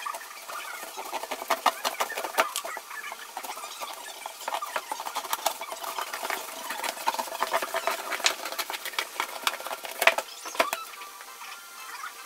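Scissors cutting through a corrugated cardboard box: a dense run of snips and crunching cardboard, with the loudest snap about ten seconds in.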